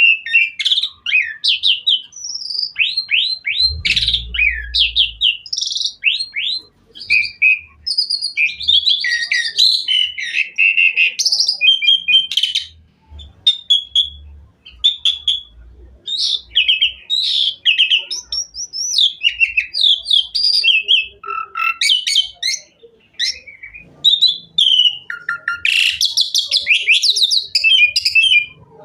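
Jalak suren (pied starling) singing a long, varied, loud song of quick rising and falling whistles, chattering trills and short calls with brief pauses, full of 'isian', the mixed fill notes that bird keepers prize in this song.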